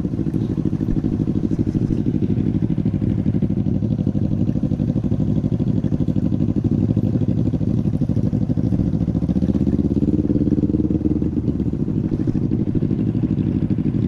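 Small motorcycle engine running steadily while the bike is ridden, its note climbing and falling back again about ten seconds in.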